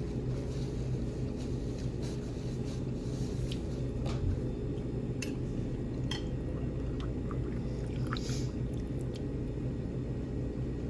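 Eating at a table: scattered light clicks and clinks of cutlery and dishes, over a steady low background hum.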